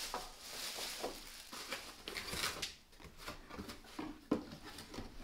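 Quiet handling noise: rustling and a few light knocks and clicks as objects are moved about on a table, with a sharper knock a little after four seconds in.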